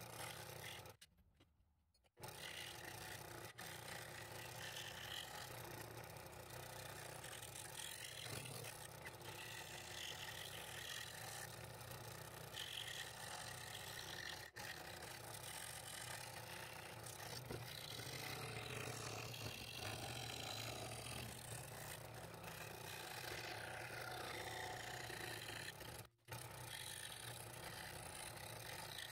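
Scroll saw running with a fine #3 blade cutting through a wooden board: a steady, fairly quiet mechanical noise with a low hum underneath, dropping out briefly about a second in and again near the end.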